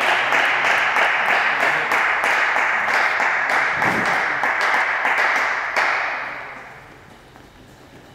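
Spectators clapping and applauding at the end of a table tennis point. The applause dies away about six to seven seconds in.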